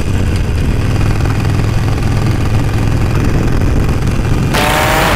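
Cruiser motorcycle's engine running at road speed, a steady low rumble. About four and a half seconds in, a loud rush of wind noise hits the microphone, with a thin whine over it.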